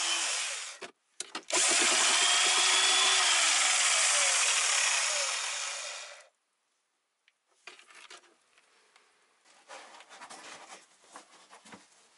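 Corded electric drill with a paddle mixer stirring cement mortar in a metal bucket. It stops briefly about a second in, runs again for about five seconds and winds down. After a short pause come faint irregular scrapes and knocks.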